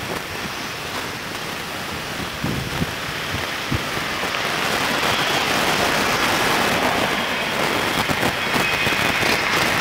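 Steady hiss of road traffic, growing louder over the second half.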